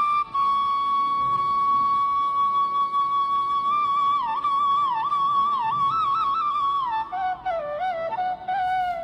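Background music: a solo flute melody that holds one long note, breaks into quick ornamented turns about halfway through, and settles onto a lower note near the end.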